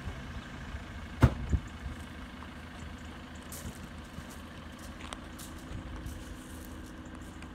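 Ford Transit minibus engine idling steadily, with two dull thumps about a second in.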